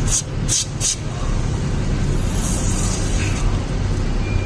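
Three short hisses from an aerosol can of penetrating lubricant sprayed into a car's ball-joint rubber boot, then a longer, softer spray about two and a half seconds in. A steady low hum runs underneath. The lubricant is being used to quiet lower-arm ball joints that squeak over bumps and in turns.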